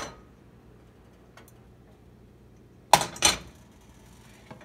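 Frying pan knocking twice on the electric stovetop, two sharp clanks about a third of a second apart, as the skillet is shifted to spread the oil.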